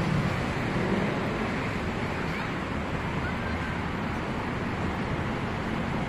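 Steady rushing outdoor noise: wind on the microphone, with a low rumble of distant road traffic underneath.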